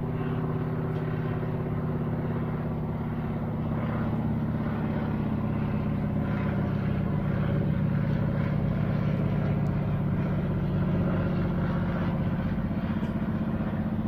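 A propeller plane's engine droning steadily overhead, growing a little louder about four seconds in.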